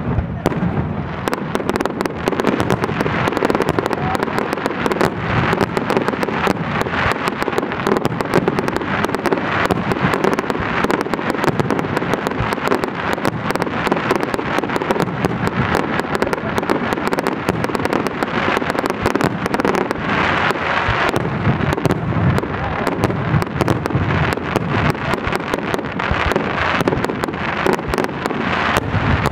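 Fireworks display at full pace: aerial shells bursting in rapid, overlapping bangs over a continuous crackle.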